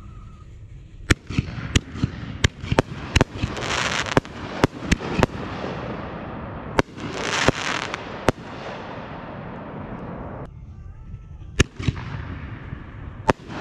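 Aerial fireworks bursting: a quick run of about a dozen sharp bangs in the first five seconds, with bursts of crackling after some of them, then a few more scattered bangs.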